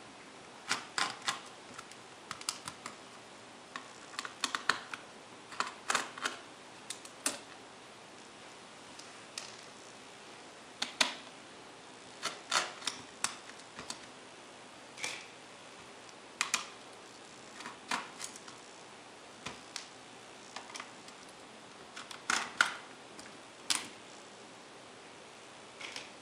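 A small screwdriver working screws out of an Acer Aspire One D250 netbook's plastic case: irregular light clicks and ticks, some single and some in quick clusters.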